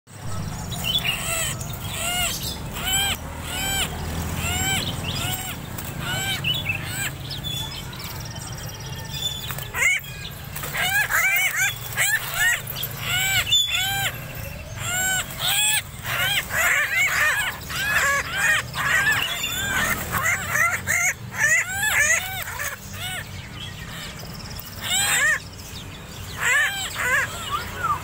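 A koak-kaok bird (a friarbird), still untrained, calling over and over in short arched notes that rise and fall. The calls are spaced at first, then come quicker and more crowded from about ten seconds in.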